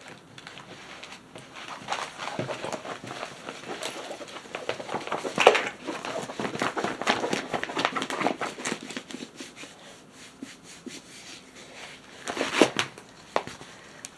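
A diamond-painting canvas and its clear plastic cover being unrolled and handled: crinkling and rustling of plastic, with a louder crackle about five seconds in and another near the end.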